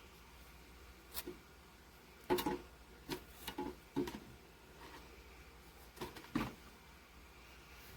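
A scattered series of light knocks and clicks from hard objects being handled, about seven in all, the loudest about two and a half and six and a half seconds in, over a faint steady low hum.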